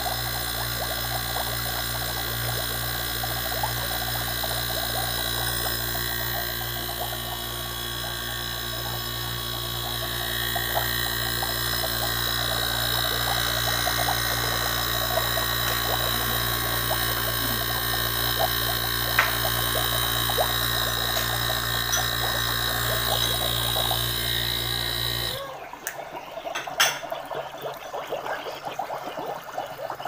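Pressurised gas bubbling out of a hose submerged in a bucket of water as a refrigerator's sealed system is purged after a 141B flush, over a steady machine hum. The hum cuts off sharply about 25 seconds in, and the bubbling goes on more quietly.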